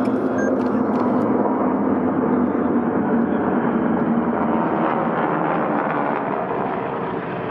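A formation of North American Harvard trainers flying over, their Pratt & Whitney Wasp radial engines merging into one steady, dense drone that eases slightly near the end.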